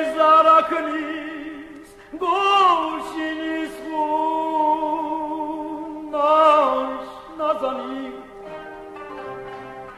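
Armenian song from a vinyl LP: a singer holding long notes with wide vibrato in three phrases, starting at the outset, about two seconds in and about six seconds in, over a steady sustained accompaniment.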